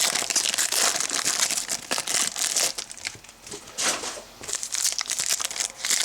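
Trading card pack wrappers crinkling and tearing as packs are opened by hand, with a quieter lull a little past halfway.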